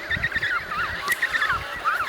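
A colony of emperor penguins calling at once: many short, high, wavering whistled chirps overlapping one another without a break.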